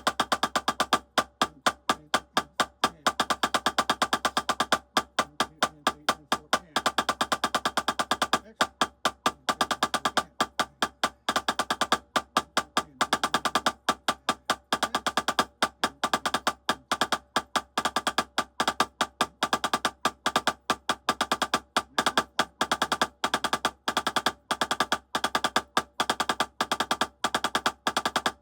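Drumsticks playing a fast rudiment exercise of alternating single-stroke fives on a drum: rapid strokes with regular loud accents among quieter taps.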